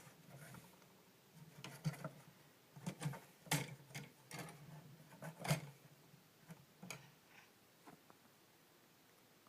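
Irregular light clicks and taps of LEGO plastic parts being handled, about a dozen over several seconds, the sharpest two in the middle.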